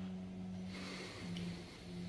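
Knife blade being stroked along a smooth strop with no abrasive compound, a soft swish about a second in, honing the fine edge to a polish; a steady low hum runs underneath.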